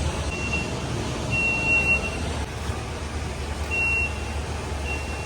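High-pitched electronic beeper sounding on and off at uneven lengths, five beeps from short to nearly a second long, over a steady low vehicle engine rumble.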